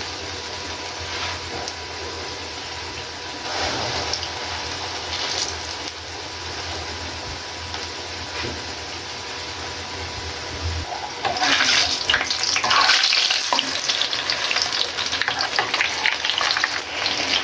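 Okra-and-gram-flour patties deep-frying in hot oil: a steady crackling sizzle. A little past halfway it grows louder and busier as the patties are turned with a wire skimmer.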